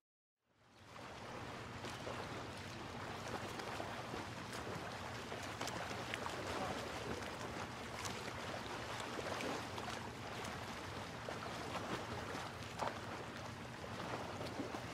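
Shoreline ambience: a steady wash of waves at the water's edge, with scattered faint clicks, fading in about half a second after a moment of silence.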